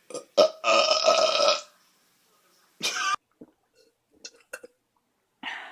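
A person burping: one loud, drawn-out belch lasting over a second, followed by a few shorter, quieter sounds.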